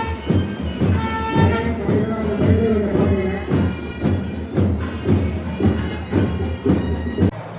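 Instrumental music: held notes from a wind instrument over a steady drum beat of about two strokes a second. The drums drop out near the end.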